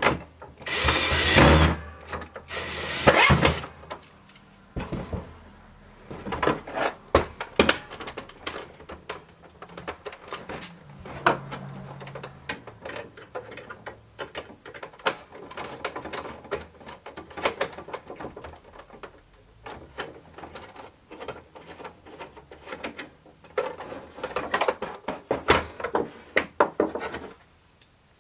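Power drill driving machine screws into 3D-printed plastic parts, in two short runs of about a second each near the start. Between and after the runs come scattered clicks and knocks of small plastic and metal parts being handled, with another rougher stretch of rubbing or driving near the end.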